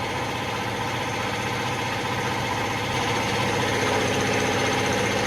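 A motor running steadily with a low hum, a faint extra tone joining about three seconds in.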